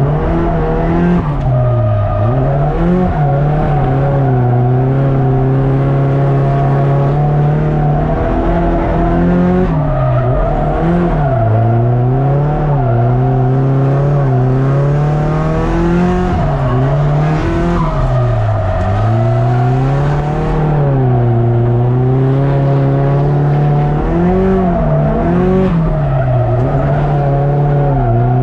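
Drift car engine held at high revs for long stretches, repeatedly dropping and climbing back as the car transitions, with tyres squealing and skidding.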